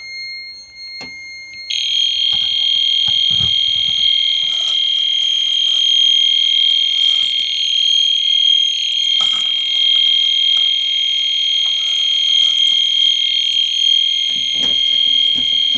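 A fire alarm sounder going off with a loud, steady, continuous high-pitched tone. It is still pretty loud even with tape over it. A fainter steady tone plays before it starts, about two seconds in.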